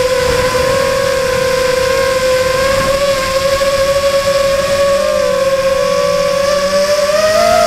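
Steady electric motor and propeller whine of a radio-controlled FPV model, picked up by its onboard camera, with the pitch rising a little near the end.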